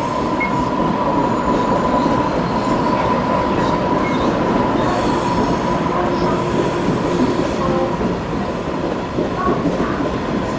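Daewoo-built TRA EMU500-series electric multiple unit running along the track, its wheels rumbling steadily on the rails, with a steady high tone over the rumble.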